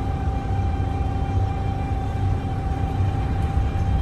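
Mercedes-Benz O405NH bus under way: a low engine rumble with a steady high whine from its Voith automatic gearbox.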